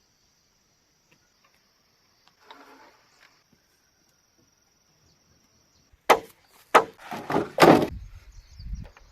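A blade chopping into bamboo: a quick series of loud, sharp strikes over about two seconds, starting about six seconds in. Before the strikes, a steady high insect drone that stops just as the chopping begins.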